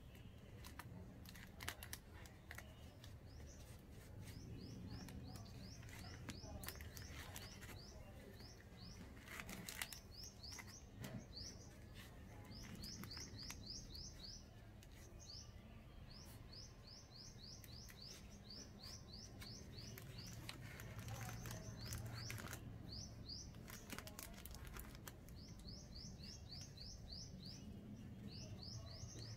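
A small bird chirping faintly in repeated runs of quick rising high notes, over scattered clicks and rustles from hands working with packing material.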